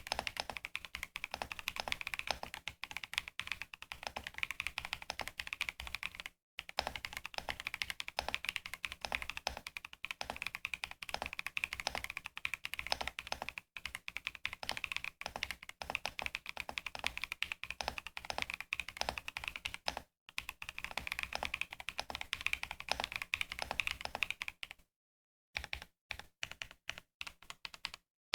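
Fast, continuous typing on a mechanical keyboard fitted with Gateron Quinn tactile switches (POM stems, nylon housings) in a Keychron V1 Ultra 8K, with a few short breaks. Near the end it slows to separate individual keystrokes.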